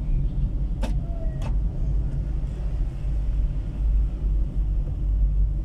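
Steady low rumble of a car's engine and road noise heard from inside the cabin while driving, with two brief sharp clicks about a second in.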